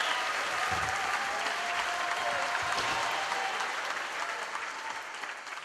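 Theatre audience applauding, the applause fading toward the end.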